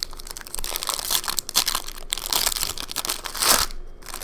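Foil wrapper of a 2017-18 Upper Deck SP Game Used hockey card pack crinkling and crackling as it is opened and the cards are pulled out. The crinkling is loudest about three and a half seconds in, then eases off.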